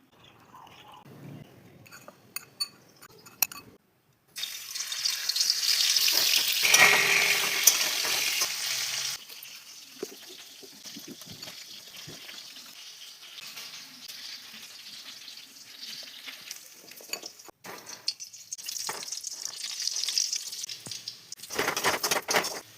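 Kitchen sounds of chicken pakoda being made, in several short clips that cut in and out abruptly: running water, stirring, and chicken pakoda frying in hot oil with a sizzle.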